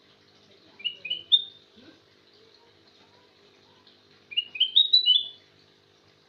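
Kutilang emas (a bulbul) singing two short phrases of bright, quickly rising whistled notes, the second one longer, over a faint steady hum.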